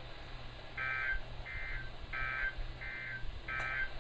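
NOAA Weather Radio SAME digital data bursts: six short, harsh warbling buzzes about two thirds of a second apart, the end-of-message tones that close the Required Weekly Test.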